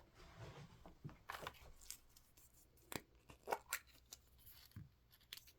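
Faint handling sounds of small items and packaging: scattered light clicks and a little rustling, a few sharper ticks about three to four seconds in.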